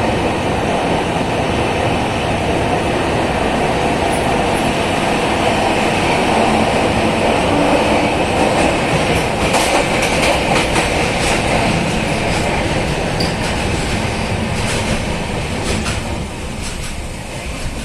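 Train running on the rails: a steady loud rumble, with a run of sharp clicks in the second half as the wheels pass over rail joints.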